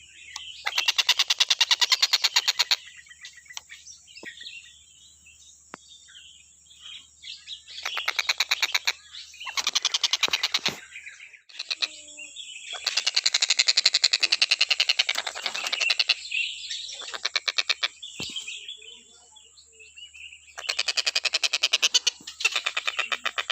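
Tengkek buto calling in bursts of fast rattling notes, each run lasting one to three seconds, several runs with short pauses between them. A steady high thin tone sits underneath.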